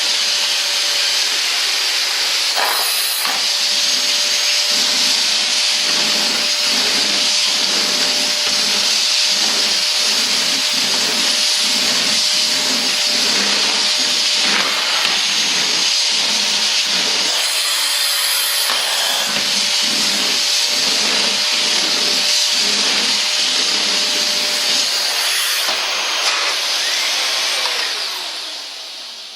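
Dyson DC39 Animal canister vacuum running with a steady hiss and whine as its floor head is worked back and forth over spilled sugar and oatmeal, with a rhythmic pulsing through the middle. Near the end the motor is switched off and winds down, its pitch and level falling away.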